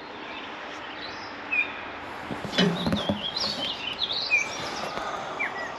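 Small birds chirping, with many short, quick calls over steady outdoor background noise. A brief thud sounds about halfway through.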